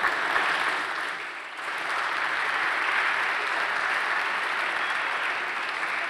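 Audience applauding steadily, easing slightly about a second in and then picking up again.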